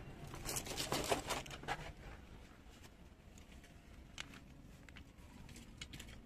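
Rustling and crackling of dry leaves and twigs for the first two seconds, then a few faint scattered clicks.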